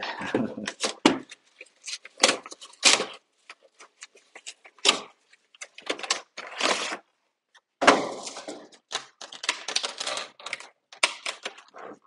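Pokémon card box packaging being handled: irregular clicks, taps and crinkly rustles of cardboard and plastic, with a longer rustle about eight seconds in.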